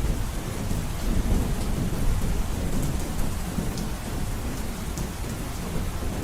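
Heavy rain falling on a roof: a steady rush with a deep low rumble underneath and scattered sharp ticks of single drops.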